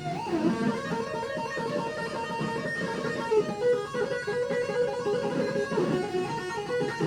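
Ibanez RG electric guitar played through a Zoom G3Xn multi-effects unit: a run of quick single notes, with one string bend about a quarter second in.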